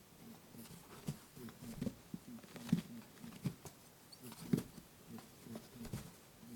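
Lop-eared rabbit honking: a quick run of short, low 'buu buu' grunts, about three a second, made while it chases in play, with soft knocks mixed in.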